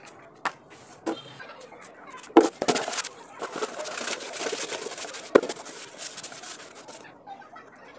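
Hands handling a torn cardboard box and an empty plastic jerrycan: a few sharp knocks, the loudest about two and a half and five and a half seconds in, with rustling and rubbing between them.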